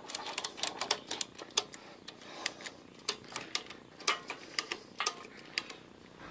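A string of sharp, irregular clicks and ticks, several a second, some louder than others.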